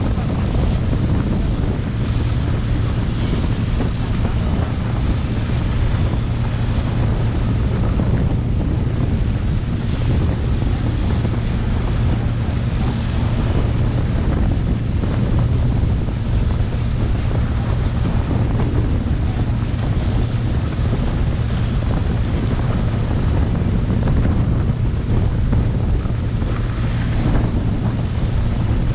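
Motorboat engine running steadily under way, a constant low hum, with wind rushing over the microphone and water washing past the hull.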